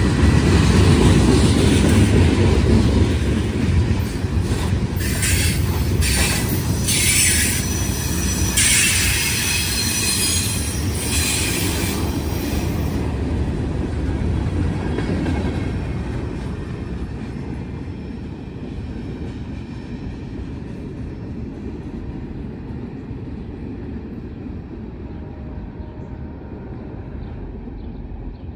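CSX mixed freight cars rolling past on the rails with a low rumble, and bursts of high squealing from about five to twelve seconds in. The sound fades from about fifteen seconds in as the last cars go by and the train draws away.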